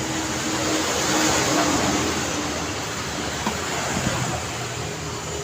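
Busy road traffic on a city street: a vehicle passes close, loudest about a second and a half in, over the steady noise of engines and tyres, with two short knocks near the middle.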